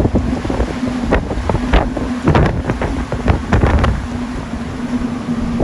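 Strong gale-force wind buffeting the microphone in a heavy rumble, broken by many sharp cracks and slaps. A steady low hum comes in near the start and again near the end.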